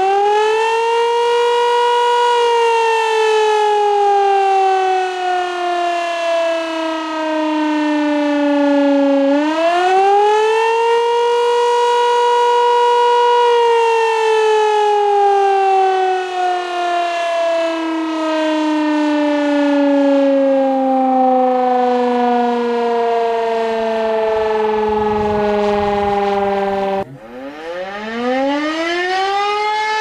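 Civil defence siren wailing. Its pitch climbs to a peak, slides slowly down, climbs again about nine seconds in, then falls for a long stretch. Near the end it cuts off suddenly and a new siren wail starts rising.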